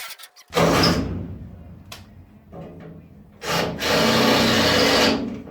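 Electric drill running in two bursts, a short one that fades out and a longer steady one near the end, with a few clicks between.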